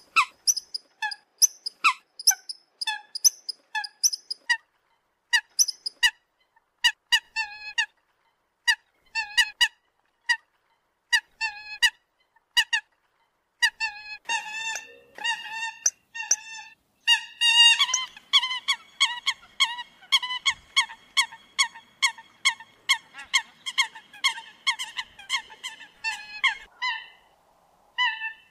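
Eurasian coot calling: short, sharp notes repeated in ragged series, often in quick pairs and threes. From a little over halfway in, the calls come in a faster, unbroken run for about nine seconds, then go back to separate notes.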